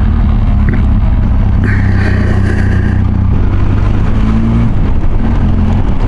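Benelli TRK 502X motorcycle's parallel-twin engine running steadily while riding, heard from the rider's seat; the engine note changes slightly about five seconds in.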